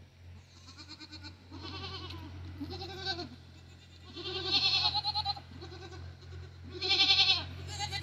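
Goats bleating: a string of about seven wavering calls, one after another with short gaps, the loudest ones late on.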